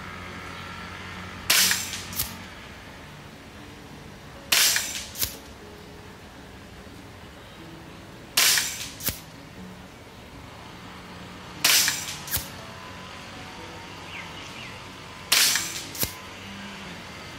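Kalibrgun Springbok 5.5mm PCP air rifle, moderated and tuned down to 50 bar regulator pressure, fired five times at a steady pace of one shot every three to four seconds. Each shot is a sharp crack followed about half a second later by a fainter knock, the pellet striking the distant target.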